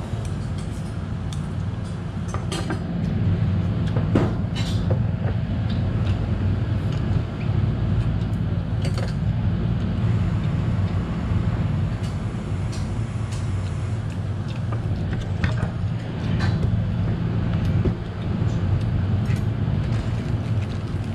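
A steady low hum, with short clinks of chopsticks and spoons against ceramic bowls now and then.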